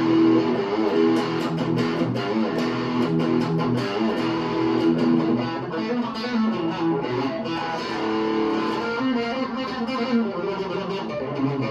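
Stratocaster-style electric guitar with a maple neck, played through an amplifier: a lead line of picked single notes mixed with held notes and chords.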